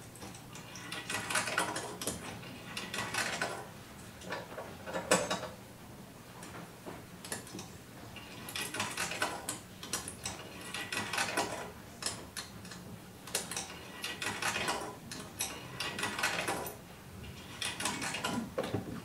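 Experimental live electronic noise performance: bursts of rattling, ratchet-like clicking textures a second or two long, coming and going over a steady low hum.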